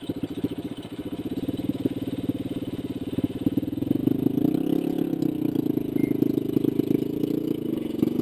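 Yamaha Rhino UTV's single-cylinder engine running with a steady pulse, getting louder and working harder from about four seconds in as the throttle opens.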